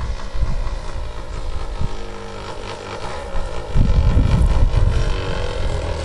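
SC 108 glow engine of a Seagull Harrier RC model plane with a 14×8 propeller running steadily in flight overhead. Wind buffets the microphone, heaviest just past halfway.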